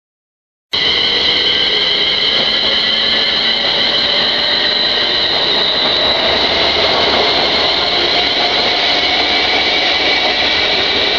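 Class 350 Desiro electric multiple unit running past on the far track: a steady rush of wheels on rail with several high, steady whining tones over it. The sound cuts in abruptly about a second in.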